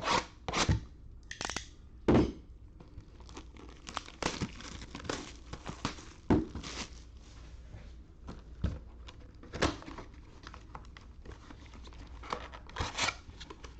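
Plastic shrink wrap being torn and crinkled off a sealed trading-card box, with sharper knocks of cardboard as the box is opened and the foil card packs are pulled out.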